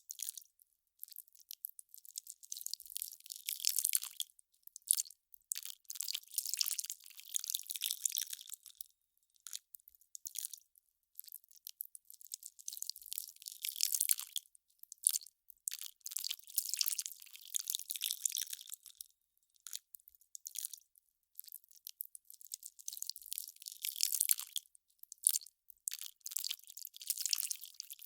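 Ice crackling and popping as it melts: dense clusters of small, sharp, high crackles coming in waves a few seconds long, with brief pauses between them.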